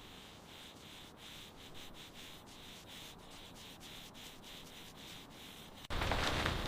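Sanding: a fairly quiet, rasping rub in even back-and-forth strokes, about three a second. Near the end a much louder, fuller noise cuts in suddenly.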